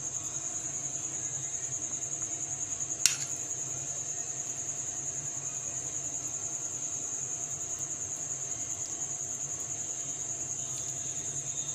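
A cricket trilling steadily, a high-pitched pulsing note, with one sharp click about three seconds in.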